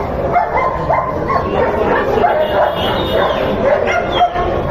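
Dogs barking and yipping, short calls following one another closely, over a busy background of voices.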